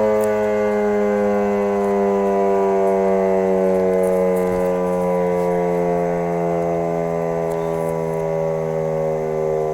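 1942 Federal Electric Model 5 civil-defense siren sounding a loud, low steady tone whose pitch slides slowly and evenly downward.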